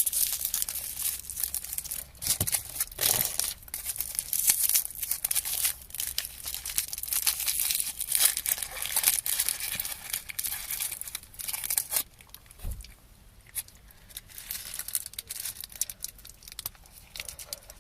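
Cellophane and foil wrapper of a Quality Street chocolate crinkling and crackling as it is unwrapped by hand. The crackling is dense for about twelve seconds, then turns sparser.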